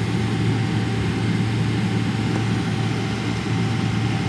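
Airliner cabin noise while taxiing: the jet engines run steadily with a constant low hum under an even hiss, heard from inside the cabin.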